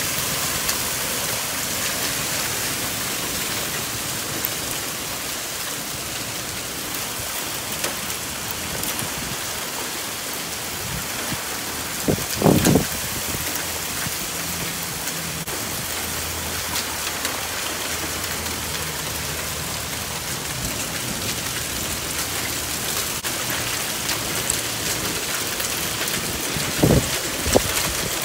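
Heavy thunderstorm rain pouring down steadily, with two brief louder thumps, one about twelve seconds in and one near the end.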